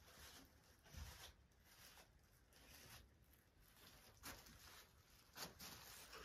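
Near silence: faint room tone with soft rustling and a few light thumps, about one and four and five seconds in, such as footsteps of someone walking slowly on carpet.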